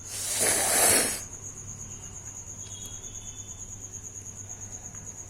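A person blowing their nose hard once, a loud noisy blast lasting about a second at the start. After it a steady, high-pitched, pulsing insect trill goes on.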